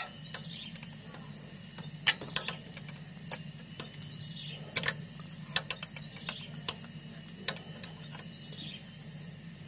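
Sharp, irregular metallic clicks of a spanner working the clutch bleeder screw on a Hino 500 truck, as the screw is tightened shut after bleeding air from the clutch hydraulics. A steady low hum runs underneath.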